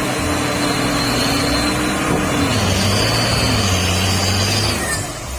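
A motor running steadily under a loud rushing hiss. Its hum drops in pitch a little over two seconds in, and it fades shortly before the end.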